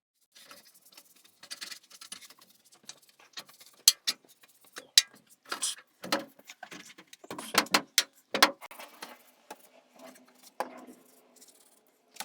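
Small hard objects being handled: an irregular run of clicks, knocks and rattles, with a few sharper knocks through the middle.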